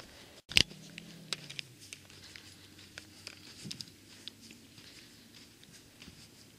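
Footsteps walking in soft, dry dune sand: scattered soft crunches and taps, with a sharp click about half a second in.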